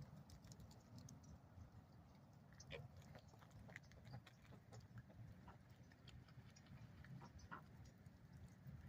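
Ducks calling faintly: short, scattered quacks and chirps over a low, steady rumble.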